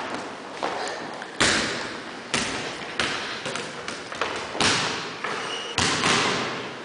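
Basketballs bouncing on a hardwood gym floor, a sharp thud every second or so at an irregular pace, each one echoing through the large hall.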